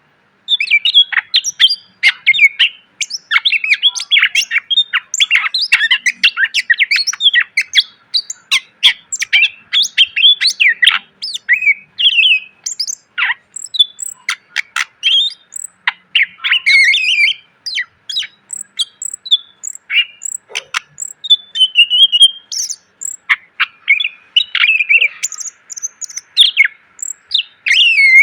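Cucak ijo (green leafbird) singing a fast, unbroken string of chirps, whistles and trills, packed with the varied fill phrases ('isian') prized in Indonesian songbird training. It starts about half a second in.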